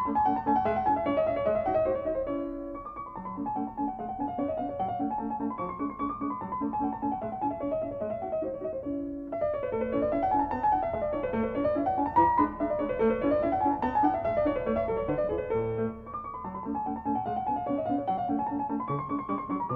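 Background piano music: runs of notes rising and falling in a repeating pattern.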